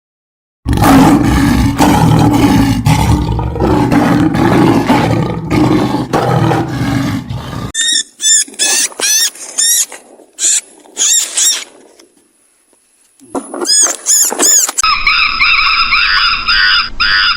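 A sequence of animal calls: a loud, deep, rough call lasting about seven seconds, then runs of short high chirping calls, and near the end a higher, shriller call.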